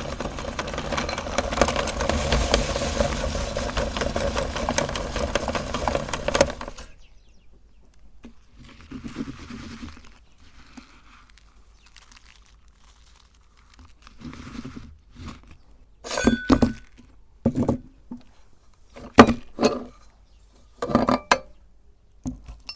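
Motorised meat grinder running as it grinds cookies, a steady hum with crunching, which cuts off suddenly about seven seconds in. After that come several sharp clinks and knocks.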